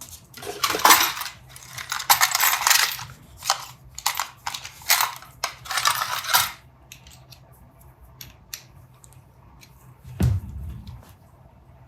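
Small metal prop parts being handled and rubbed at a workbench: a run of rubbing strokes for about six seconds, as if polishing off tarnish, then scattered light clicks and a dull knock about ten seconds in.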